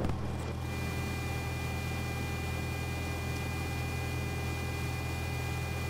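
Cessna 172's engine idling as a steady low drone, heard through the cockpit intercom with an even hiss and a faint steady electrical whine on top.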